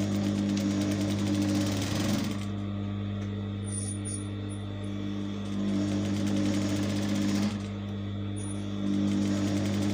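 Electric sewing machine stitching a seam in fabric, its motor humming steadily while the needle runs in spurts, dropping back twice for a second or two before picking up again.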